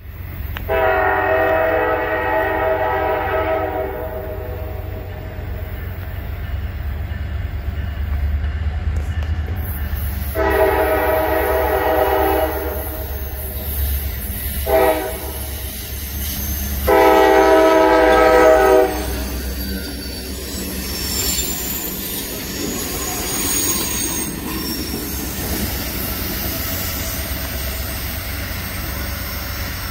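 EMD GP40WH-2 diesel locomotive approaching, its air horn sounding the grade-crossing signal: long, long, short, long. The diesel engine runs low and steady underneath, and in the last third the train's wheels run past on the curve with some high squealing.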